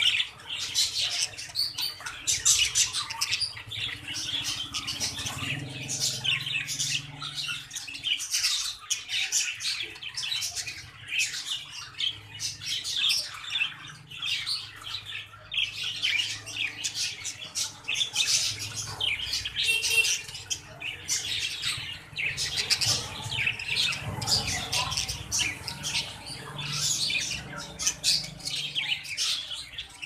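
Budgerigars chattering and squawking: a dense, unbroken run of short, high calls.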